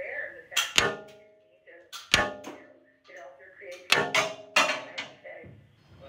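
Loose plastic Lego pieces clattering as a hand rummages through a bag of them, in three clusters of sharp clacks, some with a brief ringing tail.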